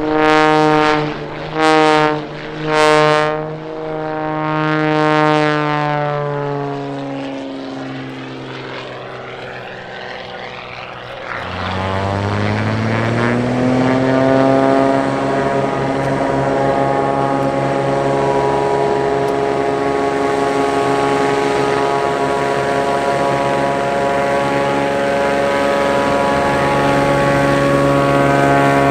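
Propeller airplane passing by, its engine note falling in pitch, with loud swells early on. About a third of the way in, another propeller engine's note rises in pitch and then holds as a steady, growing drone.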